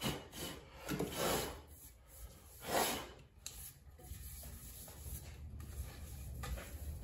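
Three rubbing strokes along a carved ash axe handle, the loudest about three seconds in, then quiet handling.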